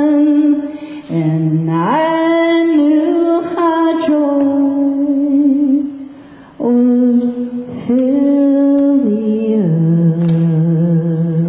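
A woman singing solo and unaccompanied into a microphone, holding long notes that step up and down in pitch, with two short breaks for breath: about a second in and around six seconds in.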